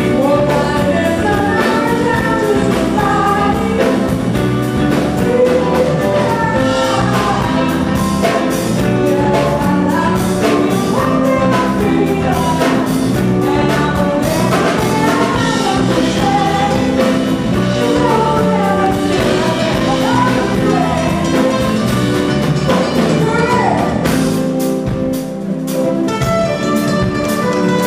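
Live jazz-soul band with a female lead vocalist singing over keyboards, electric guitars and drums, with a steady beat. About three-quarters of the way through, the bass and low drums drop away for a couple of seconds, then come back in.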